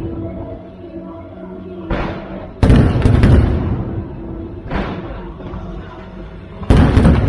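Aerial fireworks shells bursting: several booms with rumbling echo tails, the loudest just under three seconds in and again near the end, with steady music playing underneath.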